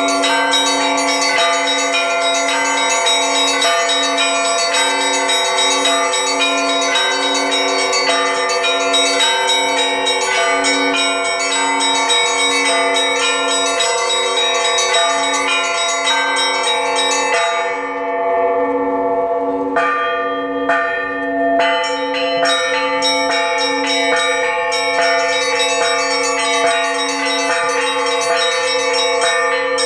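A set of ten Russian church bells, from 4 kg to 250 kg, rung together in a peal. A lower bell is struck in a steady beat beneath quick, overlapping strikes of the smaller bells. About 18 seconds in, the small bells stop for about two seconds, leaving the larger bells ringing, then their quick strikes come back.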